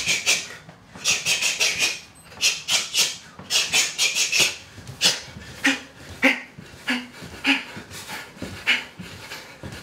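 A dog panting in quick runs of short breaths, about five a second, then slower, more spaced-out pants.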